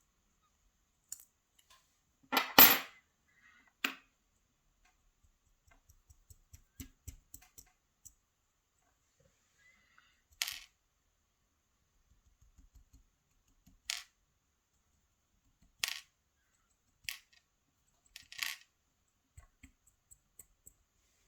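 Small metal parts of a disassembled pin-tumbler lock cylinder being handled while its pins are worked out. There is one loud metallic clatter about two and a half seconds in, then single sharp clicks every few seconds and faint light taps in between.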